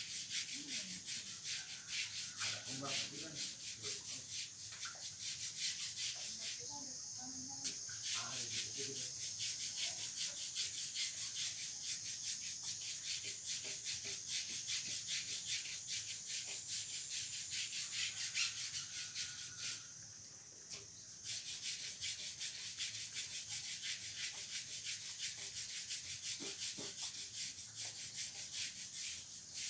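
Rapid, scratchy scrubbing by hand, many strokes a second, pausing briefly twice.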